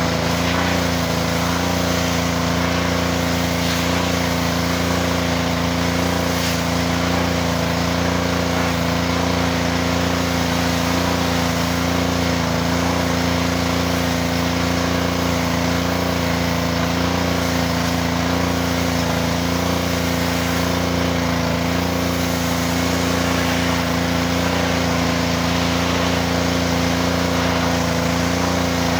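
Pressure washer running steadily: a small engine's even drone under the hiss of the spray.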